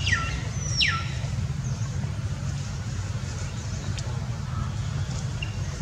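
A steady low rumble, with two short high calls sliding sharply down in pitch about a second apart near the start, and a faint click about four seconds in.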